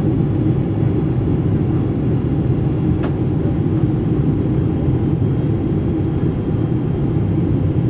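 Steady cabin noise of a Boeing 747-8 on approach, heard at a window seat beside the wing: a deep, even rumble of airflow and the GEnx engines. A faint click comes about three seconds in.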